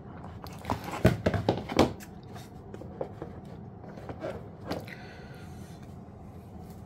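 Hands handling camera gear and accessories: a quick cluster of clicks and light knocks in the first two seconds, then a few softer taps and a faint rustle.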